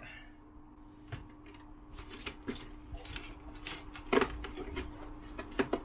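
Light scattered clicks and taps of hands handling a plastic car-alarm control unit and its wiring loom, the loudest knock about four seconds in, over a faint steady hum.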